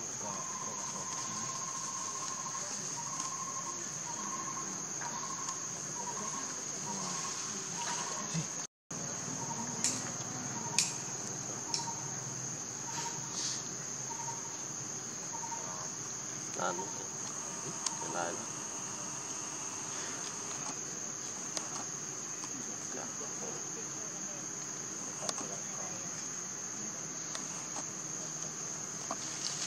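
Forest insects droning in a steady, high, continuous buzz, with a short note repeated a couple of times a second through the first half and scattered small clicks and rustles. The sound cuts out for an instant about nine seconds in.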